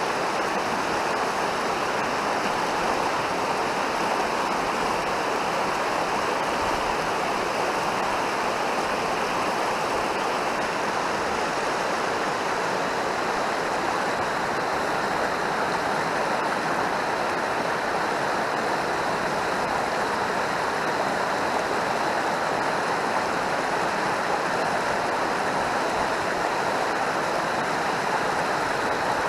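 Mountain stream rushing steadily, a constant wash of water noise.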